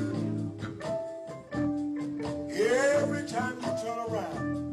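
Church music: sustained keyboard chords held under a steady drum beat, with a single voice rising in a sung cry from about two and a half seconds in.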